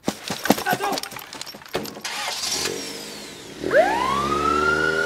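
A run of sharp clicks and knocks, then a short hiss. About three-quarters of the way through, a siren-like tone sweeps quickly upward and holds steady at a high pitch.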